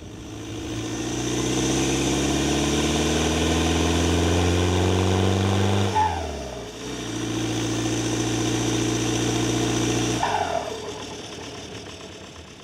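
1985 Volkswagen Vanagon's engine pulling under acceleration, its pitch climbing steadily for about six seconds. It then breaks off and runs at a steady pitch for about three seconds before dropping away near the end.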